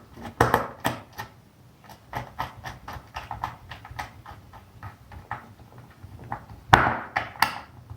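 Irregular small clicks and taps of a wire being fastened to a contactor's terminal, with a louder clatter about seven seconds in.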